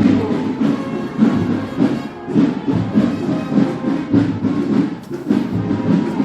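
Brass marching band playing in a street procession, horns with drums.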